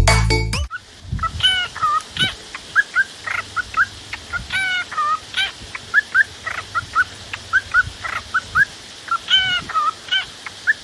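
Music cuts off under a second in, then birds call: a busy run of short, pitched chirps and squawks, many in quick pairs, over a faint low hum.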